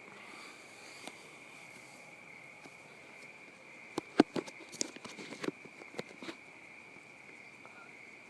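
Steady high-pitched chirring of insects, such as a cricket chorus. A cluster of sharp clicks and knocks comes between about four and six seconds in.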